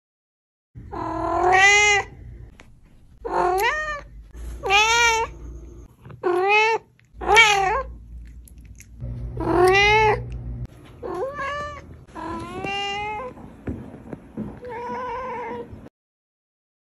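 A domestic cat meowing about nine times in a row. Each call rises and then falls in pitch, and the last one is fainter.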